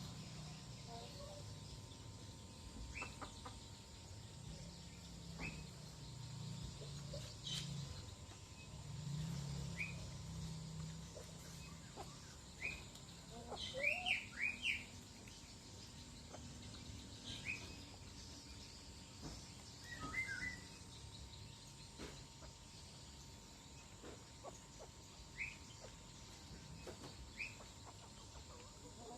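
Scattered short, high bird chirps every second or two, with a brief flurry of several louder ones about fourteen seconds in, over a faint low hum during the first ten seconds.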